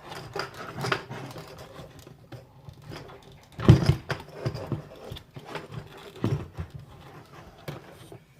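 Scattered clicks and knocks of a fuel pump and sending unit being worked by hand into a fuel tank while it is lined up to seat, with one louder knock about three and a half seconds in.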